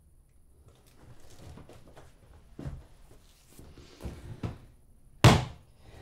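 Things being handled in a kitchen: low rustling and a few light knocks, then one sharp bang about five seconds in, like a hard object or a door being knocked shut.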